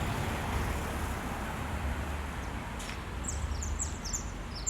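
Steady outdoor rumble and hiss, with a quick run of high, falling bird chirps starting about three seconds in.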